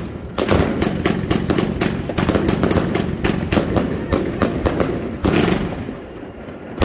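Fireworks going off as a rapid string of sharp firecracker bangs, several a second, for about five seconds, with a louder bang at the end of the run and another right at the close.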